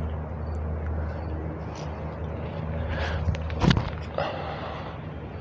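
Strong wind rumbling on the microphone. A few light steps on grass, then a single sharp thump about three and a half seconds in, at the moment a disc golf driver is thrown.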